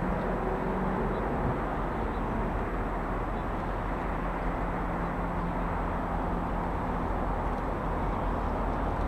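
Steady, distant engine rumble of a G class diesel-electric locomotive running light engine as it slowly approaches, with a faint low hum from the engine in the middle of the stretch.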